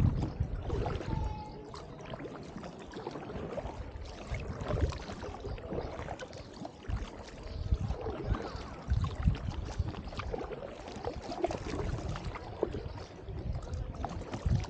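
Double-bladed paddle strokes in calm river water beside an inflatable drop-stitch kayak: uneven splashes and drips as the blades dip in and lift out, with dull low thumps now and then.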